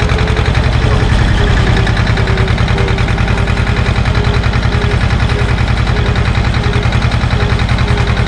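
SAME tractor's diesel engine running at a steady speed while driving, with an even, rapid firing pulse.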